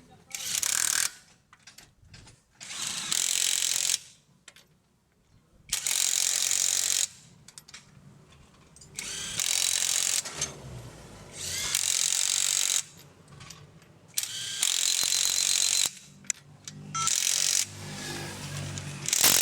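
A power tool run in repeated short bursts, about eight times, each lasting about a second and stopping abruptly, with pauses between.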